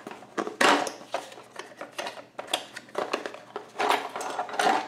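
Small cardboard box being handled and opened by hand: a run of scrapes, taps and rustles of cardboard, the loudest knock about half a second in.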